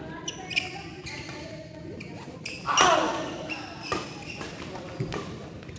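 Badminton rally: several sharp racket hits on the shuttlecock, with shoes squeaking on the court floor. A loud shout about three seconds in is the loudest sound.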